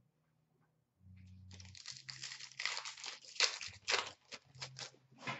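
Shiny foil wrapper of an Upper Deck Artifacts hockey card pack crinkling and tearing as it is ripped open by hand, starting about a second and a half in, irregular and crackly with a few sharper crackles.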